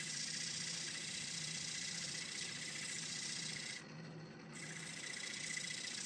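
Sandpaper rubbing on red cedar spinning on a wood lathe: a steady hiss over the hum of the running lathe. About four seconds in, the hiss drops away for under a second as the paper is lifted off, then comes back.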